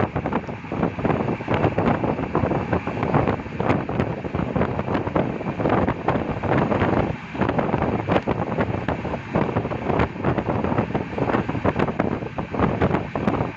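A moving train heard from a window seat: wind rushing over the microphone mixed with the running noise of the carriage, a dense steady rush with constant irregular rattling.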